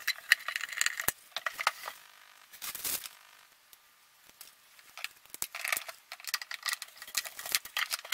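Light metallic clicks and rattles of a screwdriver and a steel handle bracket being fastened and handled on the sheet-metal case of a YiHua 853D hot air/soldering station, with a brief rushing scrape about three seconds in and denser clicking in the second half.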